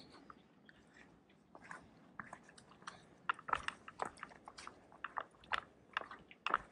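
Irregular crackling, scraping and clicking from a GoPro camera hung on a backpack, rubbing and knocking against the pack and gear with each step as the wearer walks.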